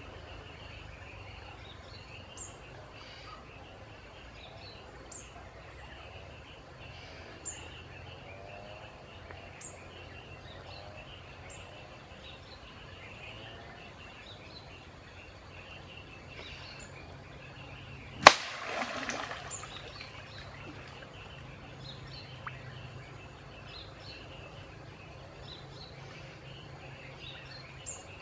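Stream-side ambience of birds chirping every couple of seconds over a steady haze of insects and a low hum. About two-thirds of the way through, one loud sharp strike followed by a second or so of splashing: a bamboo spear jabbed into the water at the bank.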